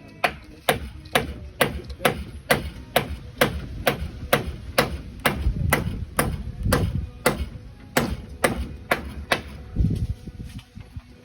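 Hammer blows struck in a steady rhythm, about two a second, some twenty strikes in all, stopping near the end.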